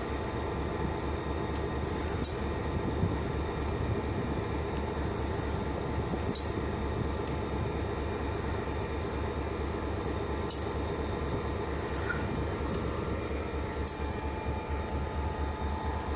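EMD GP40-2 diesel locomotive's 16-cylinder two-stroke engine idling steadily, with a few short sharp clicks.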